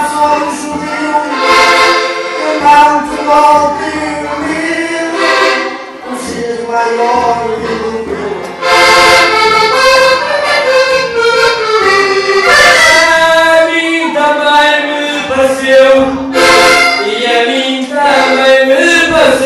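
Diatonic button accordion (Portuguese concertina) playing a desgarrada tune, with a man singing over it into a microphone near the end.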